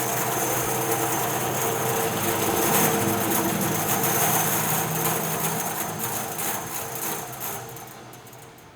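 Northfield 36-inch bandsaw coasting down after switch-off, slowed by its manual foot brake. The steady running sound holds for about six seconds, then fades away as the wheels come to a stop.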